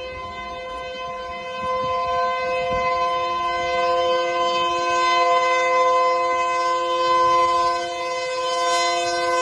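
Diesel locomotive's air horn held in one long continuous blast, a steady chord of several tones, growing louder as the train approaches.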